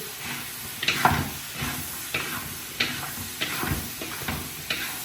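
Food sizzling in a frying pan while being stirred, with irregular scrapes and knocks of the utensil against the pan about twice a second.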